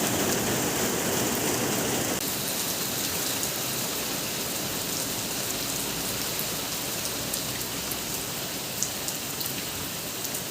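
Steady rain falling, with scattered drops ticking sharply; its lower part thins a little about two seconds in.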